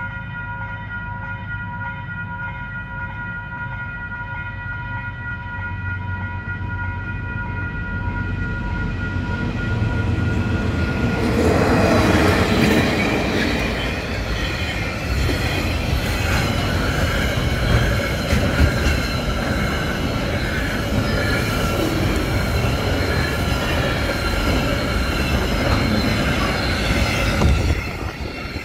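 Level crossing warning bells ringing steadily while a diesel freight train's rumble slowly builds. About eleven seconds in, the KiwiRail diesel locomotives pass close by loudly, and then the freight wagons rumble and clatter past on the rails until near the end.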